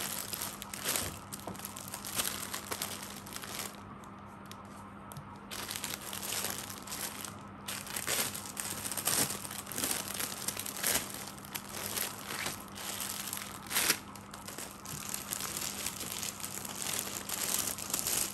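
Clear plastic packaging crinkling as hands handle a packaged suit, in irregular crackles with a short lull about four seconds in.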